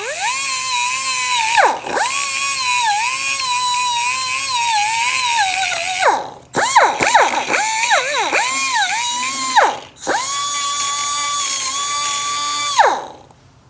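High-speed rotary tool with a grinding bit whining as it roughens the aluminium engine case for an epoxy repair. Its pitch wavers and sags as the bit is pressed into the metal. It runs in several stretches, spinning down briefly about two, six and ten seconds in, blips on and off several times around seven to nine seconds, and winds down near the end.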